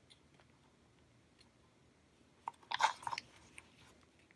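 A pen being pushed into a new, still-snug leather pen loop: a short burst of scraping and rubbing about two and a half seconds in, with a faint tick a moment later. The loop is not yet broken in, so the pen goes in tight.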